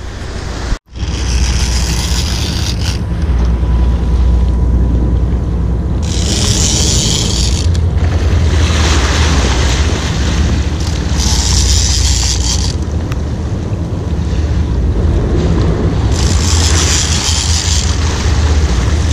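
Wind buffeting the microphone over a steady low rumble on a sportfishing boat at sea, with a rushing hiss of water coming back about every five seconds. The sound cuts out briefly about a second in.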